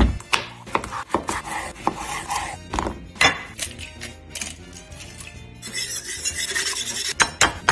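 Kitchen prep sounds: knocks and taps of zucchini handled on a wooden cutting board and an egg cracked over a bowl, then a wire whisk beating egg in a ceramic bowl, a fast scraping and clinking near the end.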